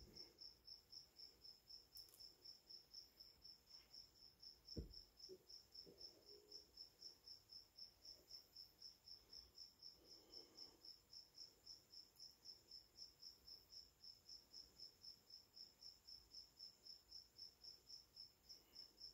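A cricket chirping steadily in a quiet room, a high, even chirp about four times a second. A single soft thump comes about five seconds in.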